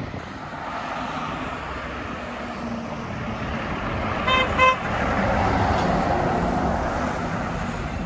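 Two quick, short beeps of a vehicle horn about four seconds in, over the rush of a vehicle passing on the road, which swells just after the beeps.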